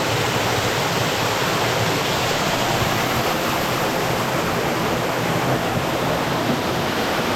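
Waterfall on a rain-swollen creek, a steady loud rush of falling water close by.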